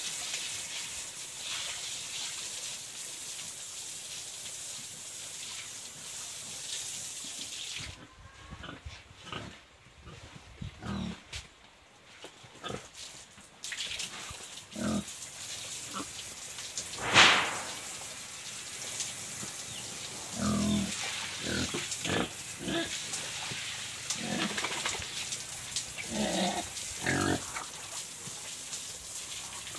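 Pig grunting in short, scattered calls, with one much louder, sharp sound about 17 seconds in. Water from a hose hisses steadily for the first eight seconds or so, then stops.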